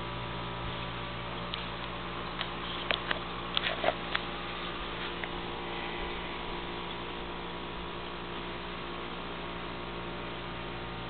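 Steady electrical hum with many overtones. A quick cluster of about eight sharp clicks and taps comes between about one and a half and four seconds in.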